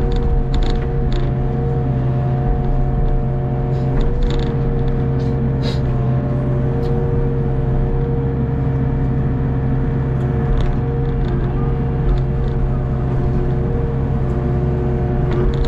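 Hitachi ZX48U mini excavator running steadily as it digs: a constant engine drone with a steady whine over it, and a few short clanks from the bucket and arm.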